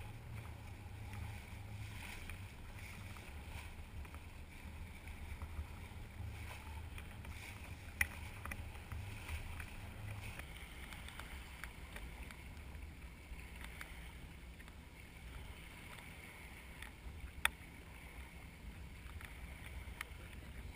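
Sailing yacht under way: a steady rush of water along the hull with wind buffeting the microphone as a low rumble. Two sharp clicks stand out, one about eight seconds in and one about seventeen seconds in.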